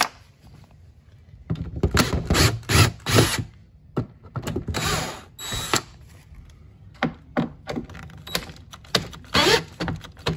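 Cordless drill/driver with a Torx bit working at floor-panel screws. It gives a run of rapid clicks from the ratcheting clutch, then a short whirr of the motor a few seconds in, then scattered clicks near the end. The drill is running on a low battery.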